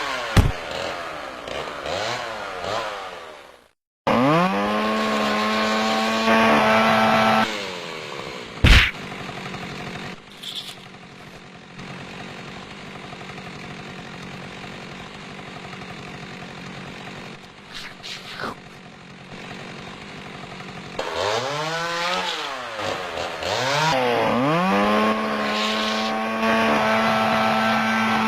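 Chainsaw engine revving up and held at full throttle twice: once from about four seconds in for a few seconds, and again after a series of quick revs about twenty-one seconds in. There is a single sharp bang at about nine seconds, and a quieter stretch between the two runs.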